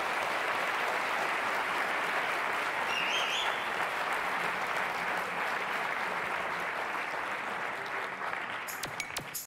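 A large audience applauding steadily, with a brief whistle about three seconds in; the applause cuts off abruptly near the end.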